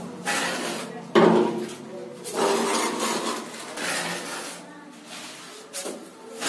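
Mason's hand trowel scraping and tapping on plaster in irregular strokes, with one sharp knock about a second in.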